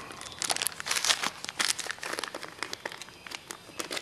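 Hands rummaging through small hardware for a number 8 washer: a rapid, irregular series of rustles and small clicks.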